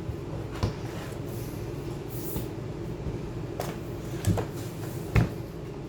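A few separate light clicks and knocks, four in all and the last one loudest, from handling a MacBook Pro and small tools during disassembly. They sit over a steady low hum.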